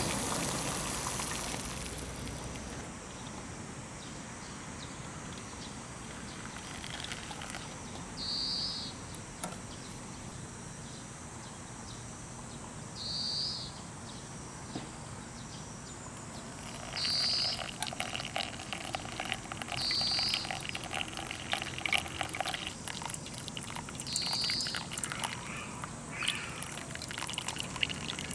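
Campfire crackling with frequent small pops, and a bird giving a short high call about every four seconds.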